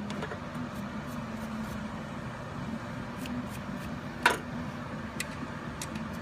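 A sharp click about four seconds in and a few faint ticks as small parts of the ignition switch are handled, over a steady background hum.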